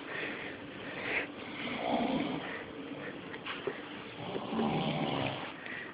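Snoring: about three slow, rough breaths a couple of seconds apart.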